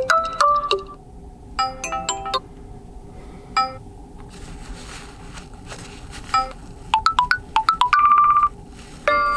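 Built-in OnePlus Nord CE 2 Lite ringtones playing: short phrases of pitched notes with short pauses between them, and a fast run of rapidly repeated notes near the end.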